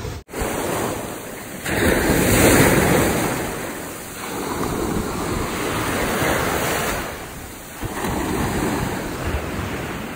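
Sea surf breaking on a beach, swelling and easing three times, each surge a few seconds long, with wind on the microphone.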